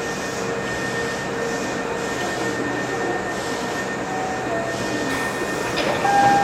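Subway train moving through an underground station: a steady rumbling roar with the whine of its electric traction motors changing pitch midway.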